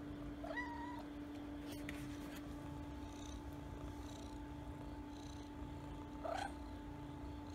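Mother cat purring steadily, with a kitten giving a short rising mew about half a second in and another near the end. A steady low hum runs underneath.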